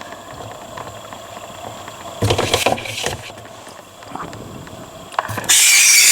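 Handling noises from a newly unboxed compact refrigerator: a cluster of knocks and scraping about two seconds in, a few light clicks, then a loud, short rushing scrape near the end.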